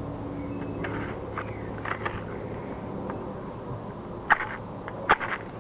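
A few short, sharp clicks and scratches over a steady low background hiss, with two louder ones near the end.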